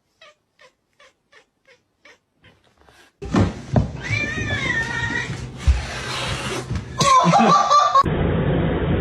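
Faint regular clicks about three a second, then a cat meowing in a long wavering call, followed by a second, shorter call near the end.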